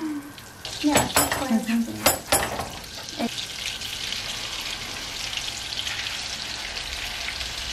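Meat pieces frying in hot melted butter in a frying pan: a steady sizzle that swells about three and a half seconds in, as the raw meat is laid in. A few sharp clinks of a fork on the pan come in the first seconds.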